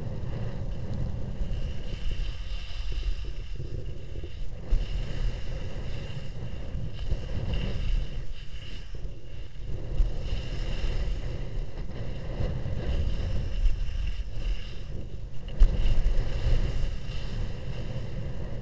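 Wind buffeting the microphone of a helmet-mounted action camera, a steady low rumble, with the hiss of skis sliding over packed piste snow. There is a brief louder gust about fifteen seconds in.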